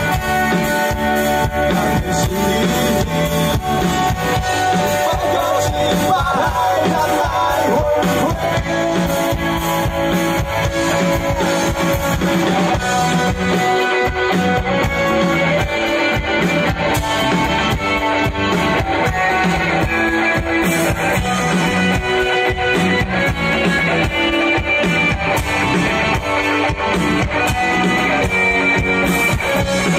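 Live rock band playing an instrumental passage without vocals: electric guitars, bass guitar and drum kit, loud and steady.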